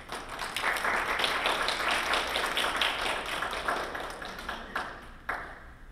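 Audience applauding: a dense patter of many hands clapping that swells within the first second and fades out about five seconds in, ending in one sharp click.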